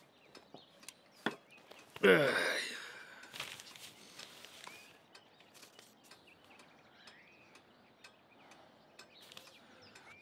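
A loud, sighing vocal exhale about two seconds in, its pitch falling steeply before it fades, set among a few soft clicks and faint breathing in a quiet room.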